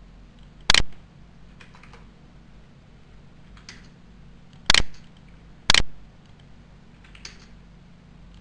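Computer mouse clicking: a sharp click about a second in, then two more close together near the middle, with a few fainter clicks in between.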